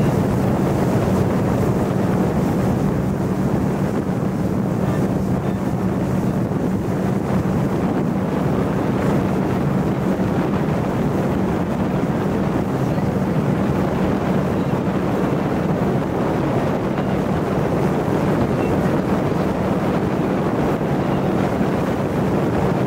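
A boat's motor running at a steady, unchanging pitch under way, with wind buffeting the microphone.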